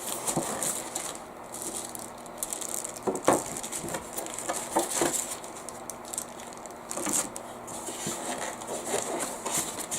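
Clicks, taps and light rattles as parts of a PC case are handled and set down, a few sharp knocks standing out about three, five and seven seconds in.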